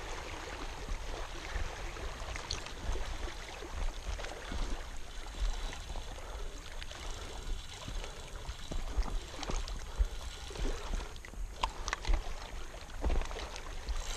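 Water splashing and trickling in the shallows at the edge of a pebbly lakeshore, around a hooked catfish lying at the waterline. There are irregular low bumps and a few short clicks.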